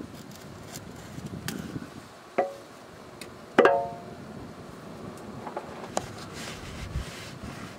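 Two metallic clanks with a short ring, about a second apart, the second louder, as the old spin-on oil filter's steel canister knocks against the chassis while it is worked out, amid soft handling and rag-rustling noise.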